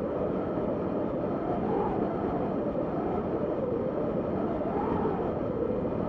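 Wind effect: a steady rushing howl that swells and rises in pitch a little around two seconds in and again near five seconds.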